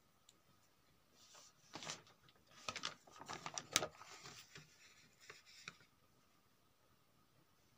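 Sheets of paper being handled and turned over, rustling and crackling in a run of quick, sharp sounds. It starts about a second in and stops a little before the end.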